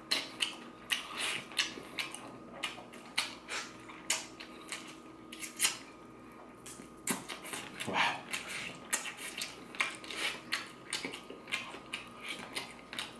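Close-up eating sounds: wet mouth clicks, smacking and sucking as stewed chicken meat is eaten off the bone, in quick irregular clicks several a second.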